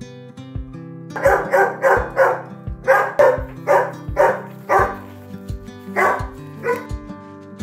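A dog barking in quick runs, about eleven barks in all, over background music.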